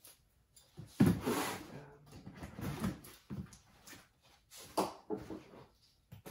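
A large cardboard box being handled and shifted on a desk: a sharp knock about a second in, then several shorter bumps and scrapes of cardboard.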